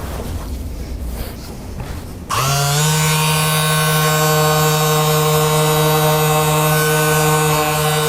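A small electric motor starts about two seconds in, rises briefly in pitch, then runs at a steady hum.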